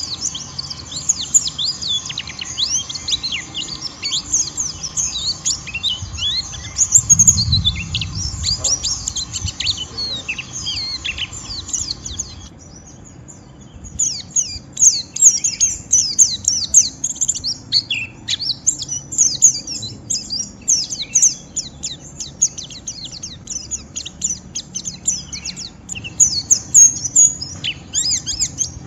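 White-eyes (pleci) twittering in a dense, rapid stream of high chirps that slur downward. It is the rough 'ngeriwik' twitter, and it breaks off for about a second and a half just past the middle. A low thump comes about a quarter of the way in.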